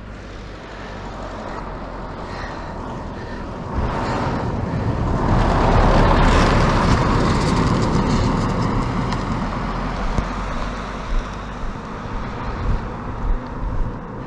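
A pickup truck driving past: engine and tyre noise swells over a few seconds, is loudest about six seconds in, then fades away. A few short thumps come near the end.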